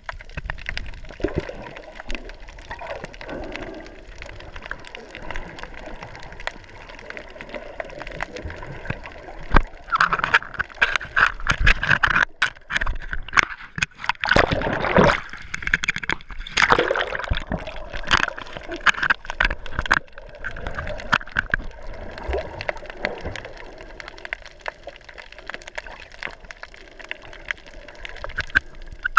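Water sloshing, gurgling and splashing around a camera held at and just below the sea surface, with a steady bubbly wash scattered with small clicks that grows busier and louder midway through.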